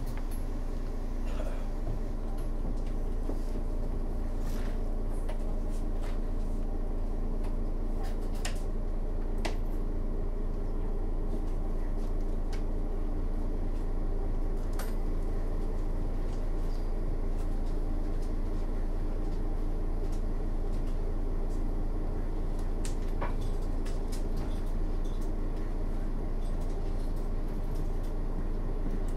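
Mercedes-Benz Citaro O 530 city bus idling at a standstill: a steady, even engine hum with no revving.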